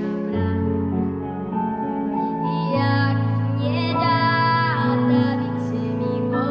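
A young girl singing solo over a slow backing track of sustained low chords. About four seconds in she holds a long note with vibrato.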